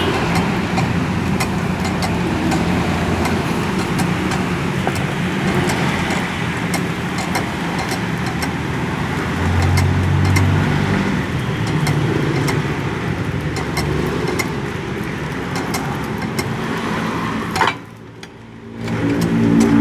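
Steady background noise of road traffic with a low hum, over which come many small sharp clicks, like tools working metal. It cuts away suddenly near the end and returns a second or so later.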